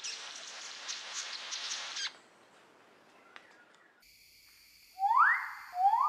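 A dry, hissing buzz like radio static, typical of a displaying King of Saxony bird-of-paradise, for the first two seconds. After a pause, a male riflebird gives loud rising whistled calls, one about five seconds in and another starting just before the end.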